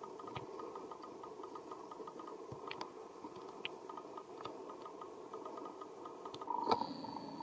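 Steady background hum with scattered soft clicks. About six and a half seconds in, a sharp click and then a thin, high-pitched squeal from an infant long-tailed macaque, held steady to the end.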